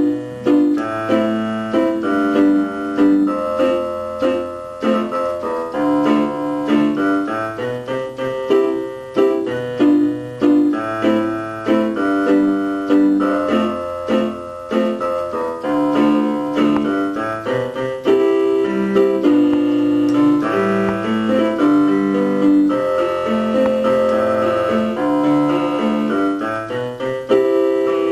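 Yamaha PSR-28 portable keyboard being played: a melody over chords and a low bass line, with struck notes that die away. From about the middle the notes are held longer and the sound is steadier.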